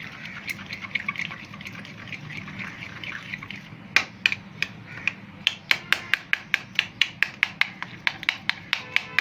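Cream, condensed milk and milk powder being whisked by hand in a bowl to work out the milk-powder lumps. A quick wet scraping gives way, about four seconds in, to sharp clicks of the whisk striking the bowl, about four a second.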